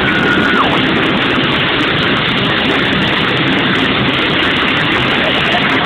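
Loud, steady engine noise with a rushing hiss.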